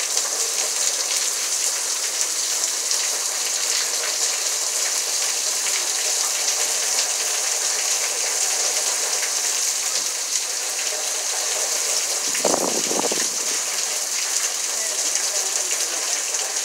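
Heavy, steady rain pouring down as a hurricane passes, with a brief lower rush about three-quarters of the way through.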